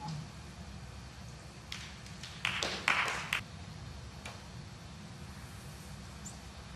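Quiet arena hum with two short rustling noises about two and a half to three and a half seconds in, then a single sharp click of a snooker cue tip striking the cue ball a little past four seconds in.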